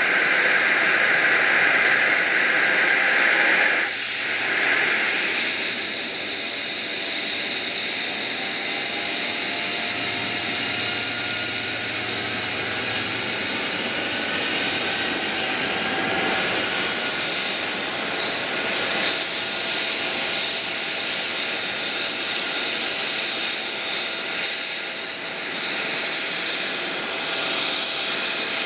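Eurocopter EC135 air-ambulance helicopter running on the ground with its rotor turning: the steady whine of its twin turboshaft engines with rotor noise, and faint whistling tones that slowly rise in pitch through the middle.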